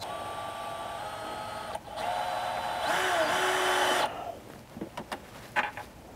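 Cordless drill/driver driving screws to fasten L brackets to the underside of a countertop: a steady motor whine in two spells of about two seconds each, the second louder, its pitch sagging briefly about three seconds in as the screw takes load. After it stops about four seconds in, a few light clicks and knocks.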